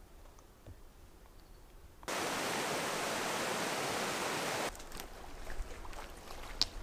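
Shallow stream rushing over stones: a steady, even rush that starts abruptly about two seconds in and cuts off suddenly about two and a half seconds later. Before and after it, only faint outdoor ambience with a few light ticks.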